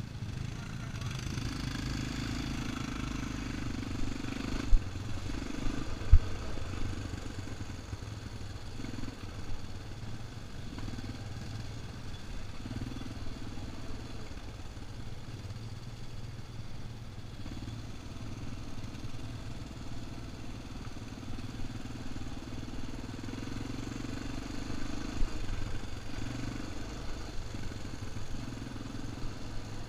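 Quad bike (ATV) engine running while riding a dirt trail, its revs rising and falling, with the machine rattling over the ground. Two sharp knocks stand out about five and six seconds in.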